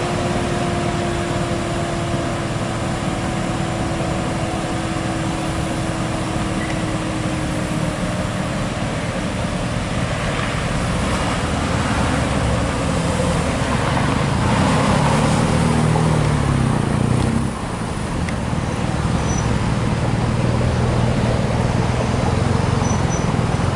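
Mercedes-AMG GT C Roadster's twin-turbo V8 running at low speed as the car creeps forward and pulls away. The exhaust note swells and rises in pitch past the middle, drops suddenly about two-thirds of the way through, then settles into a steady rumble.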